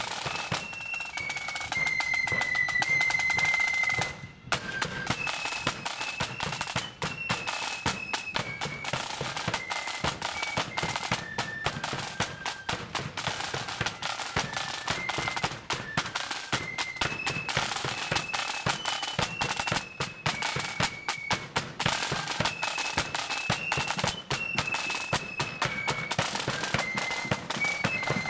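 Blood-and-thunder marching flute band playing: rapid, hard side-drum strokes and a bass drum under a high tune on flutes. The music breaks off briefly about four seconds in, then the tune starts again.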